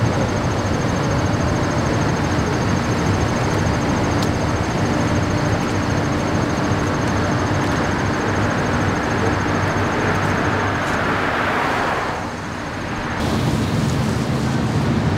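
Steady low rumble of highway traffic and idling engines, with a passing car's tyre noise swelling about ten seconds in. The sound dips briefly and changes abruptly near the end.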